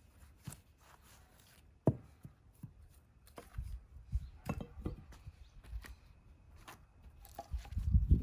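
An axe striking firewood: one sharp knock about two seconds in, followed by scattered lighter knocks and low thumps of wood.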